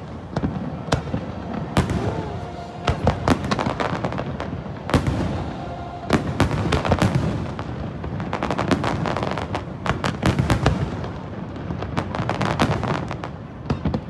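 Aerial fireworks going off in a continuous, irregular run of sharp bangs and crackles, several coming in quick clusters.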